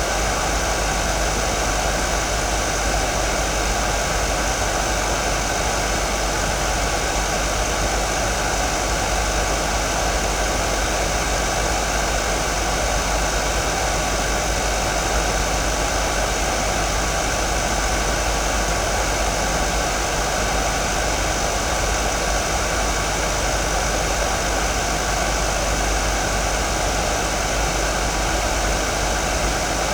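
Hair dryer running steadily: a constant rush of air with a low hum and a few thin, steady whining tones, never changing in level.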